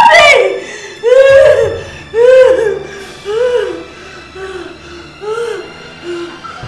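A woman's high-pitched scream, followed by a string of short wailing cries about once a second that grow fainter, as she flounders in water.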